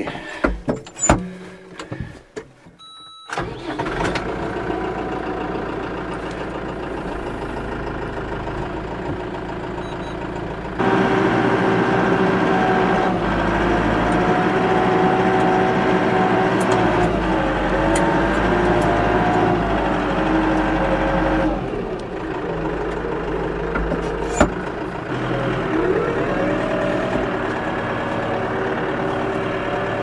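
Compact tractor's engine starting about three seconds in, after a few clicks and a brief beep, then running steadily. About eleven seconds in it is throttled up louder, and its pitch rises and falls as the tractor drives off.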